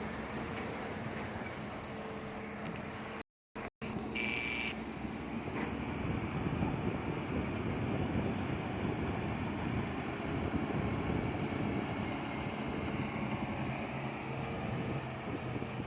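Bulldozer's diesel engine running steadily, a little louder from about six seconds in. The sound cuts out twice briefly a little over three seconds in, followed by a short high-pitched tone.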